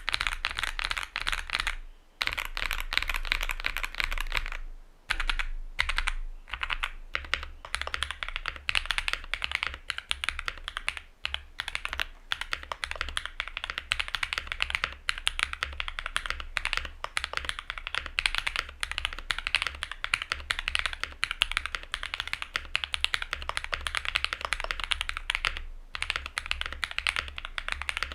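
Continuous clacky typing on a Luminkey65 mechanical keyboard with an FR4 plate and lubed, filmed switches: Mode Obscura switches first, then NK Cream+ switches with copper inserts from about seven seconds in. Fast runs of keystrokes broken by a few short pauses.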